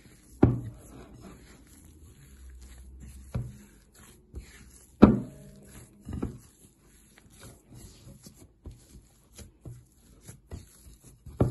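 Hands kneading soft flour-cookie dough in a glass bowl, nearly at its smooth, non-sticky stage: soft squishing and rustling broken by several sharp knocks against the glass bowl, the loudest about five seconds in.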